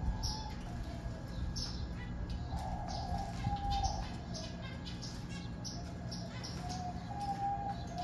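Small aviary finches, zebra finches among them, chirping repeatedly in short, high, falling notes, with a few longer, lower held calls mixed in. A steady low hum runs underneath.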